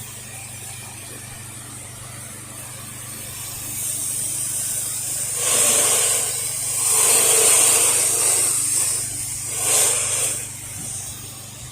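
Soft-wash spray of sodium hypochlorite mix hissing from a nozzle onto house siding, rising in several surges over the steady low hum of the running pump.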